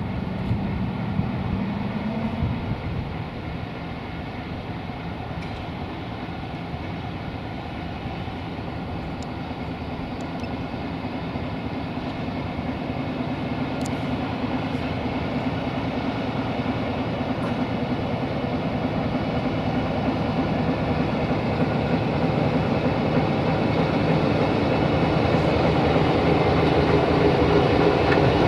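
Diesel engine of an LDE1250 (class 040-DF) diesel-electric shunting locomotive running under power as the locomotive moves along the tracks. Its pitch rises briefly about two seconds in, and the sound grows steadily louder toward the end.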